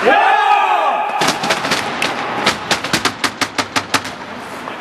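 A loud yell, then a quick run of sharp knocks, about five a second for some three seconds: hockey sticks banged against the rink boards and ice by players at the bench in celebration.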